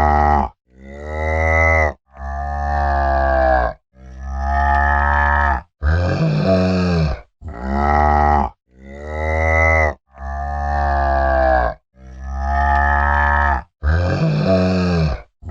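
Cow mooing over and over, a long low moo roughly every two seconds with short breaks between calls.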